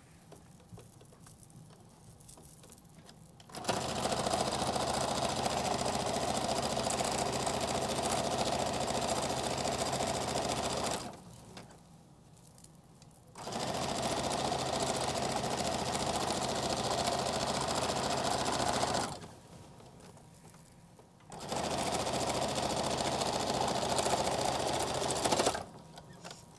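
Electric household sewing machine stitching along the top edge of a fabric organiser pocket, in three steady runs with short pauses between. The first run starts about four seconds in and lasts about seven seconds.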